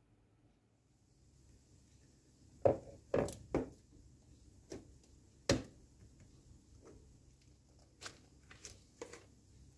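Metal springform cake pan handled on a countertop: a string of sharp knocks and clicks, the loudest nearly three seconds in and again about five and a half seconds in.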